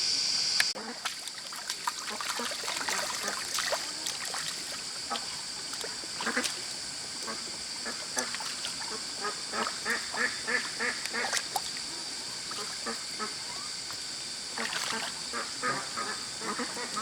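Short animal calls repeated in quick runs, some in dense bursts, over a steady high-pitched drone.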